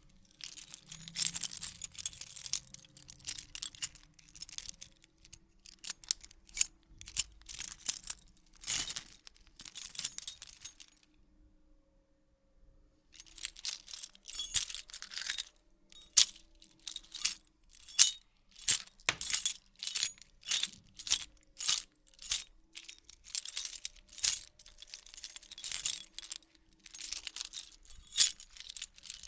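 A bunch of metal keys jingling and rattling as they are shaken and handled, in clusters of bright, high clinks. The jingling stops for about two seconds near the middle, then comes back as a series of quick separate shakes about once a second.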